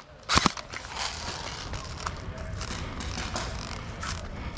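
Airsoft rifle firing a quick burst of two or three shots right at the start, then steady noise with a few faint scattered clicks.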